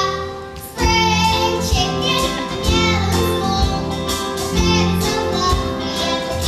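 A child singing a song over instrumental accompaniment, with a steady bass line underneath.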